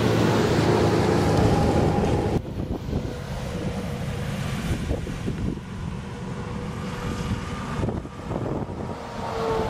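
Interstate highway traffic going by: engine and tyre noise from passing vehicles, loudest in the first two seconds, then dropping abruptly to quieter road noise. A semi-truck passes near the end as engine sound builds again.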